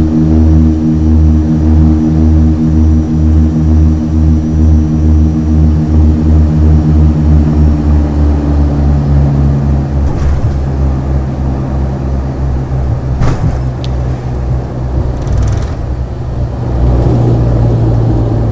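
Dash 8-100 turboprop engines and propellers heard from the cabin as a loud, evenly pulsing drone on final approach. About halfway the tone drops and eases off with power reduced for landing, and a few short thumps come as the aircraft settles onto the runway. Near the end the engine sound swells again during the landing roll.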